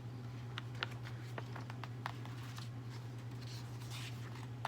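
Faint rustling and small clicks of a picture book's paper pages being handled as stuck-together pages are worked apart to turn. A steady low hum runs underneath.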